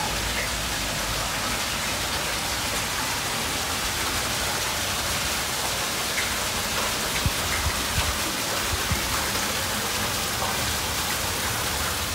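Water leaking through the closed wooden bottom gates of a deep canal lock, gushing and splashing into the channel below: a steady, even rushing hiss.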